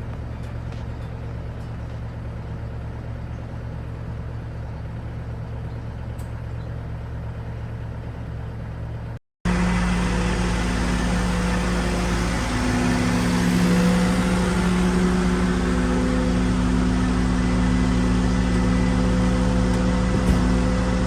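Cat 308 excavator's diesel engine running: a steady low hum for the first nine seconds. After a brief dropout it runs louder and higher, with steady engine tones and a faint high whine above them.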